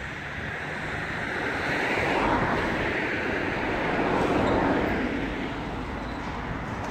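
Street traffic: the road noise of a passing vehicle swells to a peak in the middle and fades again.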